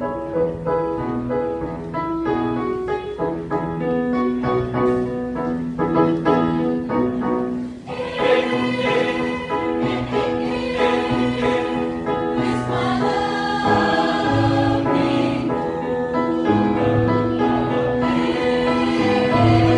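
Mixed choir singing with piano accompaniment, the singing growing fuller and louder about eight seconds in.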